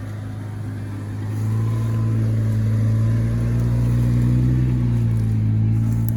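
Jeep Wrangler engine running at a steady speed, a low even hum that gets louder about a second in.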